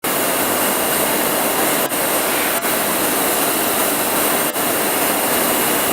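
Steady, loud hissing drone of magnet wire production machinery running in a factory workshop, broken by three very brief dips.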